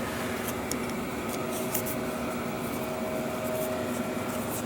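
Light metallic clicks and scrapes of a bolt being threaded by hand into the repaired hole of a steel hydraulic valve block, over a steady hum of shop machinery.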